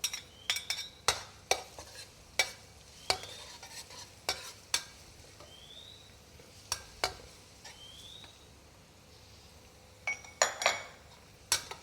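A metal spatula stirring and scraping garlic and sweet preserved radish in a hot pan, with irregular clinks and short rising squeaky scrapes over a faint sizzle of frying. The stirring thins out for a few seconds in the second half, then the clinks pick up again near the end.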